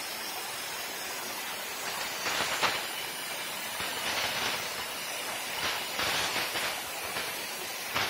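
Plasma cutting torch on a portable CNC cutting machine cutting through steel plate: a steady hiss, with louder surges of hiss about two, four and six seconds in.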